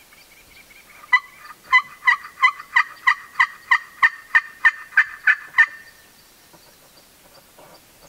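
Turkey call sounding a long, evenly paced series of about fourteen hen-style yelps, roughly three a second, starting about a second in and stopping a little before six seconds.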